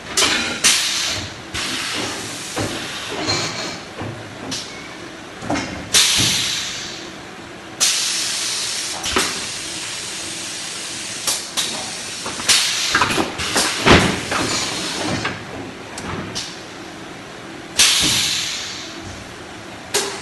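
Paper-tube machine at work: repeated bursts of air hiss, the longest lasting a second or two, among short knocks and clatter of the machine and the cardboard tubes.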